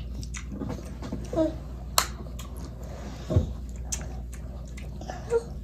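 Mealtime eating sounds: a few sharp clicks and smacks, the sharpest about two seconds in, with a couple of short toddler vocal sounds.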